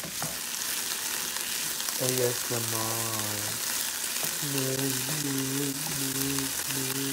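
Black beans and corn sizzling in a hot nonstick frying pan while a wooden spoon stirs through them. A low pitched tone comes and goes in short, evenly spaced notes through the second half.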